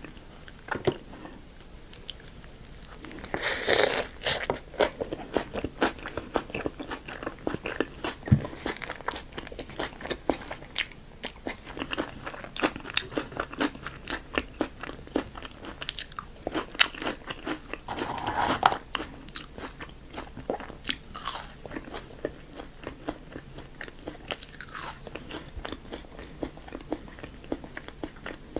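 Close-miked eating of fast food: crisp crunching bites and chewing, with many small sharp clicks. There is a louder crunching stretch a few seconds in and another a little past the middle.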